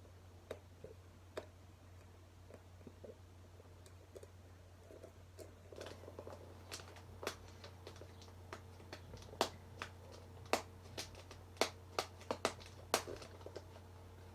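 Hands opening a shipping package: scattered crackles and sharp clicks of packaging being handled and pulled apart, sparse at first and coming faster and louder from about halfway through.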